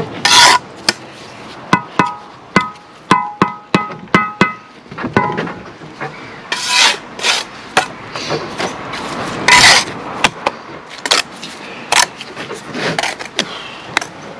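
Steel bricklaying trowel scraping and slapping mortar onto a concrete block, with many sharp taps. A run of taps between about two and five seconds in rings with a short metallic tone.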